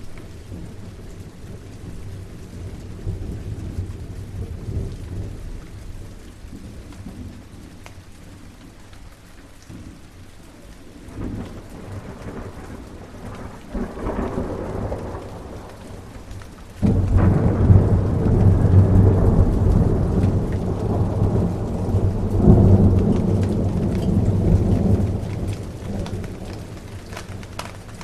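Steady rain with thunder: distant rumbles build, then a sudden loud thunderclap a little past halfway rolls on for several seconds before dying away.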